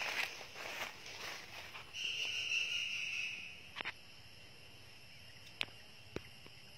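Footsteps on wood chips and dry leaves for about two seconds, then an insect's steady high buzz for about a second and a half. After that, only a faint insect hum with a few small clicks.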